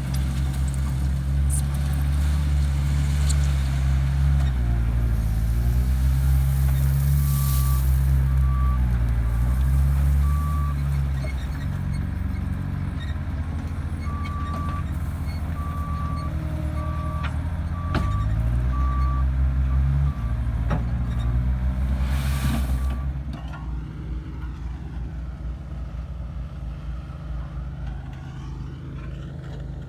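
Heavy diesel construction vehicle running, with its reversing alarm beeping at one steady pitch in two spells. There are two brief hisses, and the engine sound drops off near the end.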